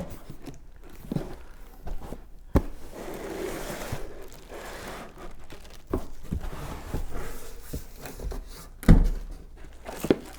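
Vacuum parts and packaging being handled while unpacking a box: scattered knocks and clicks with some rustling, and a heavier thump near the end.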